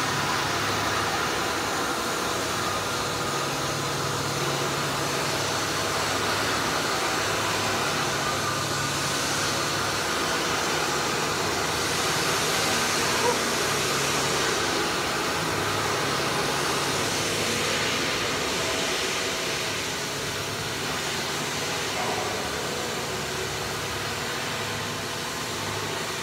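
Steady industrial machinery noise, a constant rushing din with a low hum that cuts in and out every second or two.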